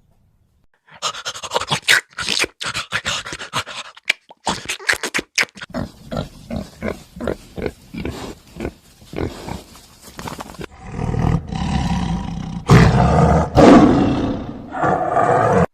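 A big cat calling: a run of harsh, rasping grunts repeated about twice a second, building into longer, louder roars in the last few seconds.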